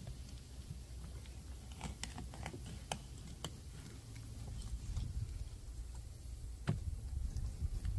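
Fillet knife cutting a salmon fillet off the carcass: scattered small clicks and ticks over a low rumble.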